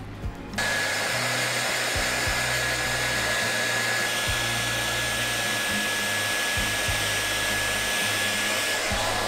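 Handheld hair dryer switched on about half a second in and running steadily, a rush of air with a steady high whine, blow-drying a dog's wet coat.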